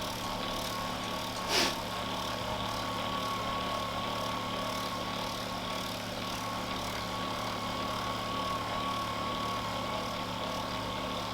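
Handheld electric massager running, a steady motor hum with a thin steady whine. A brief louder sound comes about a second and a half in.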